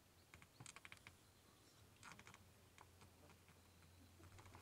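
Near silence: faint scattered clicks and ticks, with a quick run of them about a second in and another cluster about two seconds in, over a faint low steady hum.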